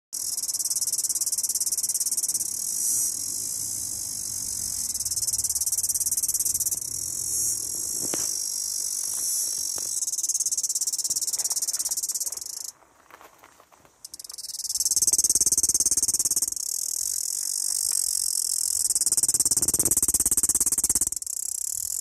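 Male cicada singing its mating call: a loud, continuous high-pitched buzz with a fine rapid pulse. It breaks off for about a second roughly midway, then resumes.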